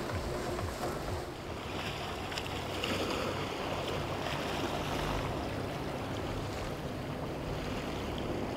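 Motorboat running at speed through choppy water: a steady engine drone under the hiss and slap of spray and waves, with wind noise on the microphone.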